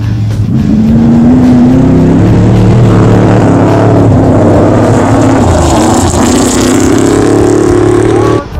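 Class 8000 desert race truck's engine running hard at high revs as the truck races past, its pitch rising twice as it accelerates, over the rush of tyres on dirt. The sound cuts off abruptly near the end.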